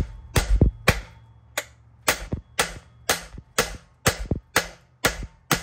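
Sharp knocks repeated evenly about twice a second, each ringing briefly, from the removed stock Nissan 350Z exhaust pipe being knocked against concrete.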